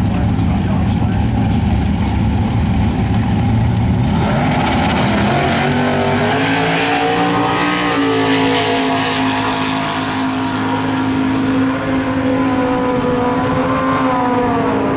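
Two drag-racing cars, a street Pontiac Firebird and a Chevrolet Camaro drag car, rumbling at the starting line, then launching at full throttle about four seconds in. Their engine note climbs as they pull away down the strip.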